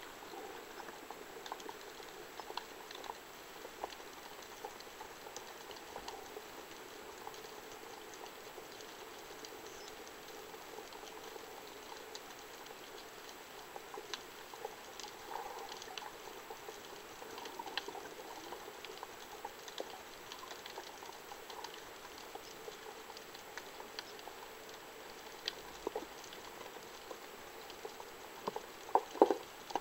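Underwater ambience heard through a camera housing: a faint, steady crackle with scattered small clicks. A few louder knocks come near the end.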